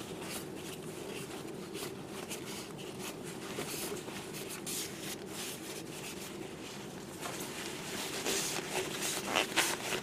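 Paper towel rustling and rubbing against a small plastic bottle as thick primer is wiped off its neck and threads, growing louder and more frequent near the end. A steady low hum runs underneath.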